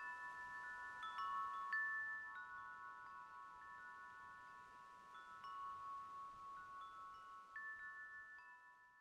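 Metal tube wind chime ringing in the breeze: a few tubes struck at a time, their long tones overlapping and dying away, fading out near the end.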